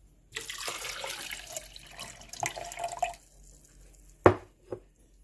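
Water pouring into a plastic blender cup for about three seconds. A sharp knock follows about a second later, then a fainter one.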